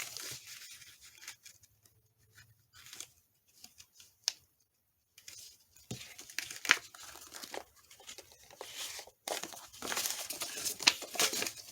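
Craft paper being handled: intermittent rustling and crinkling with small taps, nearly silent for a few seconds in the middle, then busier rustling in the second half.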